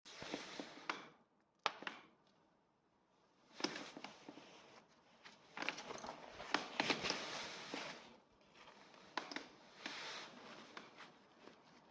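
Hands working with metal tools and car parts: irregular clinks and knocks with rustling in between, busiest a few seconds in.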